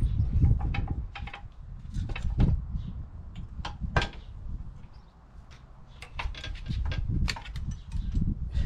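Irregular clicks, clunks and knocks of tools and metal fixings as the rear mudguard of a Triumph Bobber is unbolted and worked free of the frame, over a low steady rumble.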